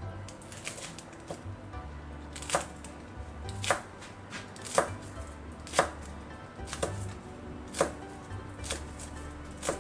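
Chef's knife chopping spring onions on a wooden cutting board. The blade knocks sharply on the board at a slow, even pace of about one cut a second.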